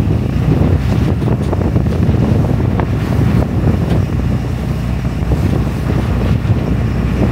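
Wind buffeting the microphone over a motorboat running at speed, with water rushing past the hull.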